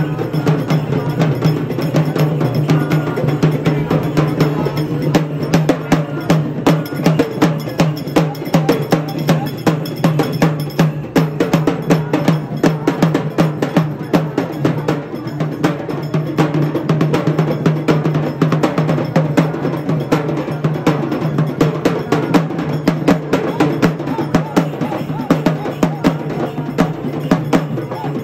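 Fast, continuous procession drumming with sharp, metallic-sounding strikes, over a steady low hum.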